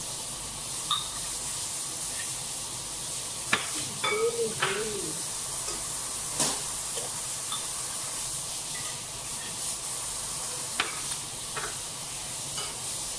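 Metal ladle stirring, scooping and knocking against a glass bowl of liquid jelly, with scattered sharp clinks over a steady hiss.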